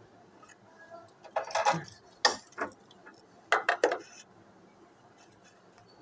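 A bird pecking at a metal feeding bowl: sharp clinks and rattles in a short cluster about a second and a half in, two single knocks just after, and another cluster near the four-second mark.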